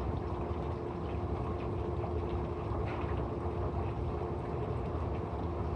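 Small pool circulation pump running steadily with water flowing and gurgling through a freshly cleaned salt-chlorine generator cell, a steady hum underneath.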